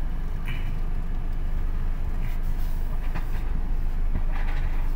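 Car engine and low steady rumble heard inside the cabin as the car is maneuvered at low speed, with a few faint short sounds over it.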